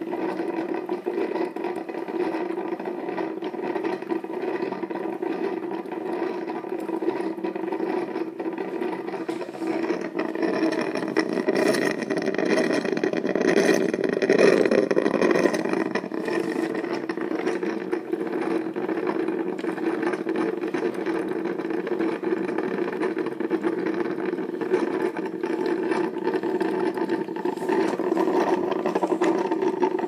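Small drip coffee maker brewing: water boiling and gurgling up through the machine in a steady bubbling sputter. It swells louder for a few seconds about halfway through.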